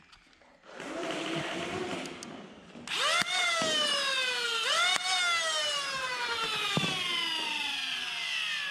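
Flywheel motors of a 3D-printed Gryphon foam dart blaster spinning up twice, each time with a sharp rising whine that then winds down slowly as the wheels coast, with a few clicks of the blaster. A lower motor hum comes just before.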